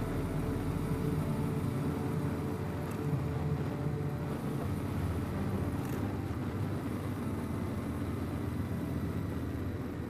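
Yamaha Ténéré 700 motorcycle's parallel-twin engine running steadily while the bike is under way.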